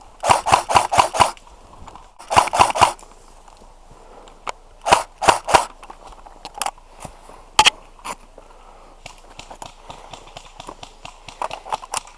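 G&G M14 EBR Short airsoft electric rifle firing quick strings of shots, about six a second: a string of about six near the start, then about four, then three, followed by scattered single sharp clicks and one loud crack.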